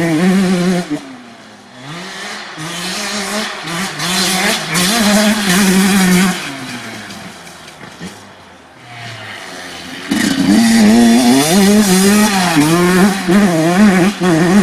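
2007 Honda CR85's 85 cc single-cylinder two-stroke engine revving hard under load, its pitch climbing and dropping with each gear change. It fades away after about a second, swells again, dips around eight seconds in, then is loud from about ten seconds in with quick rises and drops in revs.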